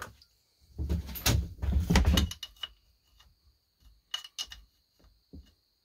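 Metal hand tools handled on a workbench: a burst of clattering and scraping about a second in, then scattered light metallic clicks and clinks as a socket is worked onto a chainsaw muffler bolt.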